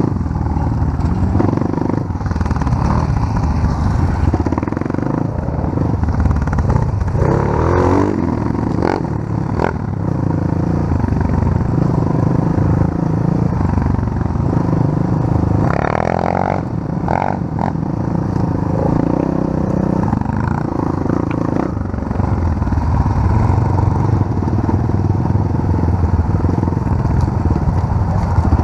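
Pit bike engine running while being ridden off-road, its revs rising and falling, with now and then a short rattle or knock from the bike over rough ground.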